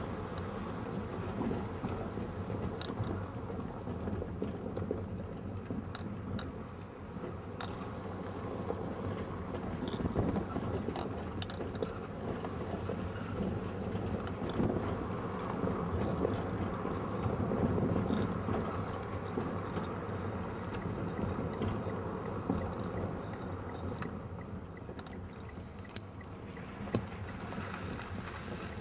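Steady engine and road noise heard from inside a moving car, with a few light clicks and rattles scattered through it.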